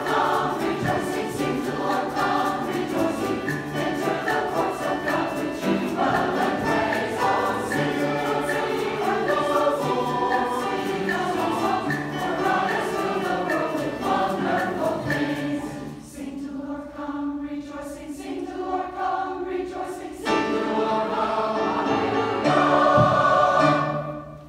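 Mixed choir singing with an accompaniment of strings and brass. The music softens for a few seconds past the middle, then swells to its loudest just before the end and breaks off.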